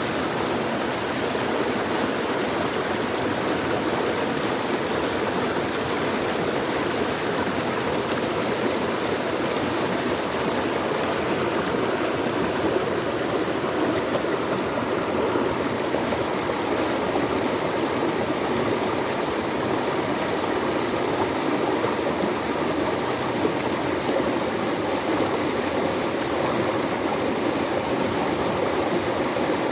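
Steady, unbroken rush of flowing water, as of a stream.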